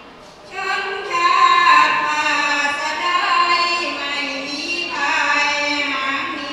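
A group of women singing sarabhanya, the Thai Buddhist devotional chanted verse, in long held, slowly wavering notes. A short pause for breath comes in the first half-second before the voices resume.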